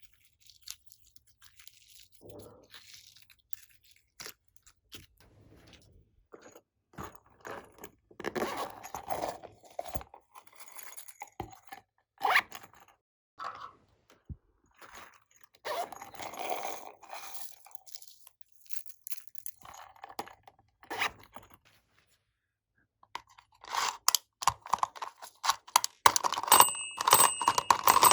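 Slime being squeezed and kneaded by hand, crackling and popping in irregular bursts with short pauses between. Near the end it grows louder, and a steady high ringing tone joins in.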